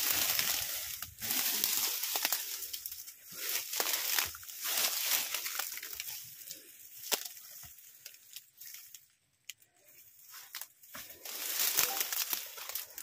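Footsteps crunching and rustling through dry undergrowth in irregular bursts, with a short lull about nine seconds in.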